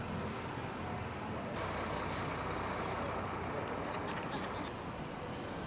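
Steady vehicle noise, becoming a little louder about one and a half seconds in.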